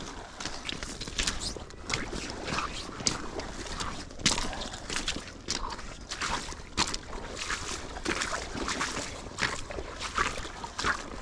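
Shallow river water splashing and sloshing in many short, irregular splashes.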